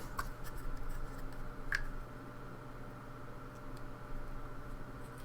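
Faint small clicks and light scratching from a pin-tumbler lock being worked by hand as it is shimmed, with the sharpest click a little under two seconds in. A steady low hum runs beneath.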